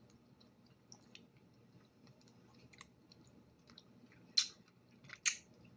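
A person chewing food close to the microphone: soft, scattered mouth clicks and smacks, with two louder, sharper mouth sounds near the end.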